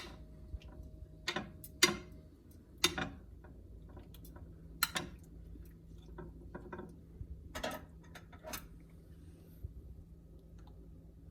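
Scattered clicks and knocks of a microwave and a microwave-safe bowl being handled as the half-cooked squash is checked and stirred, the loudest two knocks near 2 and 3 seconds in, over a low steady hum.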